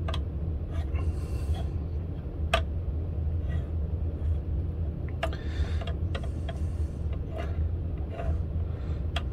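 Small metal fret rocker being set down and rocked across guitar frets to find high ones, giving a few sharp light clicks several seconds apart and soft scraping as it slides along the fretboard. A steady low hum runs underneath.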